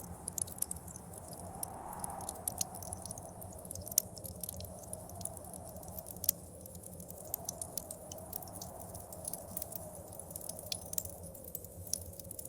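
Wood fire crackling with many irregular sharp pops, over a snowstorm wind that howls in a slowly wavering tone.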